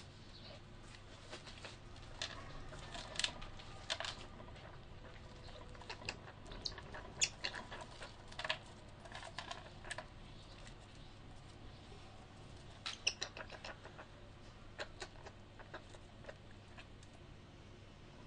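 Young European ground squirrels scuffling and scrabbling in a plastic-bottomed cage. Scattered short scratches and clicks with brief squeaks come thickest in the first half and again about two-thirds through.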